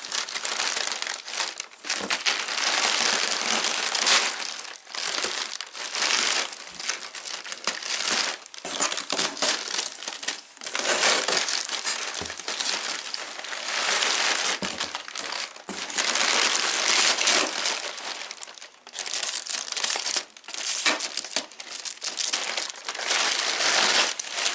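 Packing paper and plastic wrap crinkling and rustling as they are handled and pulled out of a cardboard box, in irregular bursts with short pauses between.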